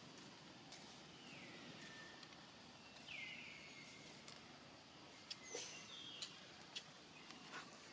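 Faint forest ambience with two high, falling whistled animal calls, one about a second in and a louder one about three seconds in, plus a few short high chirps and scattered light clicks.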